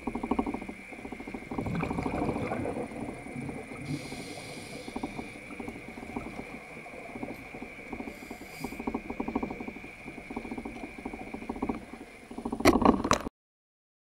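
Scuba diver breathing through a regulator, heard underwater through the camera housing: a rush of exhaled bubbles that surges about two seconds in and again near the end, and short hisses of inhaled air around four and eight seconds. A steady high tone sits under it, and the sound cuts off suddenly near the end.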